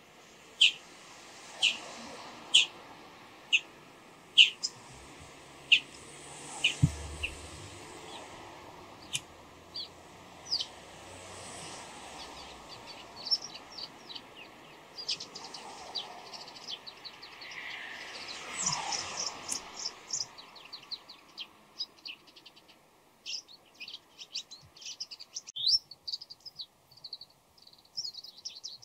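Bull-headed shrike calling: a run of sharp, high notes about one a second, giving way after about ten seconds to varied, quicker chattering notes that become a rapid jumble of twitters near the end.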